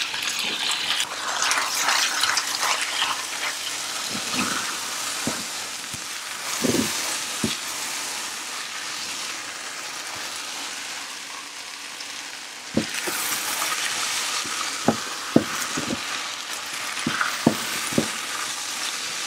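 Mushrooms, onion and chicken sizzling in a frying pan just after crème fraîche is poured in. The sizzle eases a little mid-way, then picks up again about two-thirds through as the mixture is stirred with a silicone spatula. Several short knocks of the spatula against the pan come in the second half.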